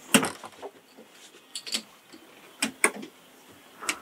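A boat's cabin door being worked and latched against its freshly tightened strike plate: a sharp latch click at the start, followed by several lighter clicks and knocks, mostly in pairs about a second apart.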